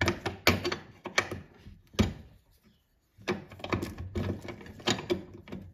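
A steel 17 mm combination spanner clicking and scraping on a wiper spindle nut as it is lifted off and refitted to turn the nut in short bites. The sharp metal clicks come a few to the second, stop briefly about two seconds in, then start again.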